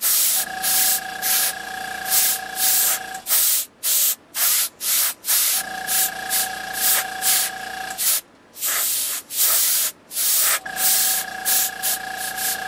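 Copic airbrush system spraying: short bursts of air hiss in quick, uneven succession as colour is blown onto the card. A small airbrush compressor runs with a steady hum in three stretches of about three seconds each, stopping in between.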